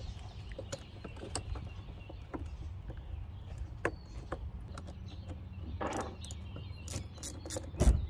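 Scattered light clicks and taps of hands handling wiring and the battery terminal in a Jeep Wrangler's engine bay, over a steady low rumble. The clicks come quicker in the last second, with one louder knock just before the end.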